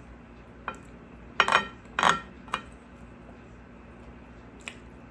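Spoon clinking and scraping against a plate as food is scooped: about five sharp clinks, the loudest two close together in the middle with a brief ring.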